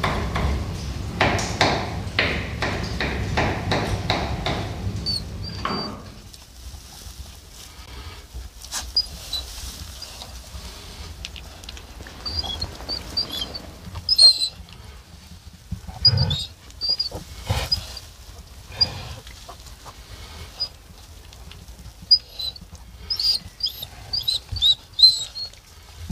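A loud, evenly ticking clatter for about the first six seconds, cutting off suddenly. Then newborn piglets give short high squeaks in scattered clusters, with faint rustling in straw.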